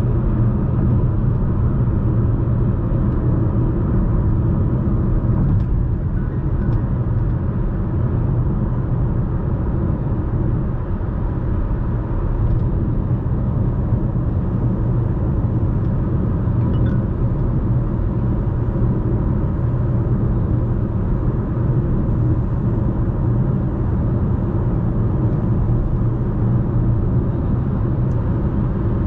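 Steady low rumble of road and tyre noise heard inside the cabin of a Chevrolet Malibu 1.35T cruising at about 100 km/h on a motorway.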